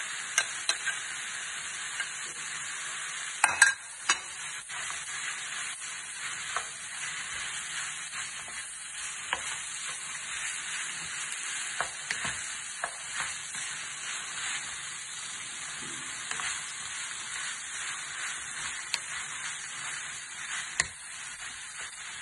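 White fish pieces frying in butter in a metal pan with a steady sizzle, stirred with a wooden spoon that knocks and scrapes against the pan now and then. The loudest knocks come in a cluster about three and a half seconds in.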